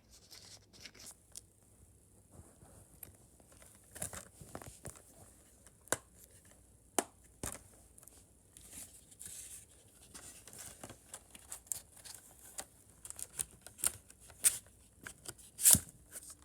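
Blu-ray packaging handled: scattered clicks and rustles, growing busier in the second half.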